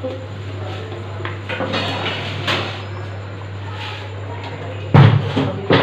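Cookware being handled: soft clatter over a steady low hum, then two loud clunks less than a second apart near the end.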